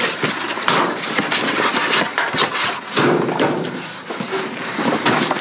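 Rummaging through trash in a dumpster: steady rustling and scraping of debris, broken by frequent short knocks and clatters as items are pushed aside and picked up.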